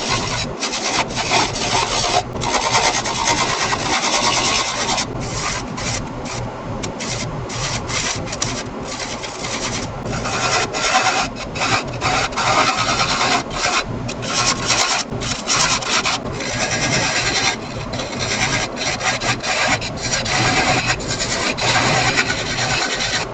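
Turning tool cutting a spinning wooden lid blank on a wood lathe: a steady scraping rasp that breaks off and starts again many times as the tool is lifted and reapplied.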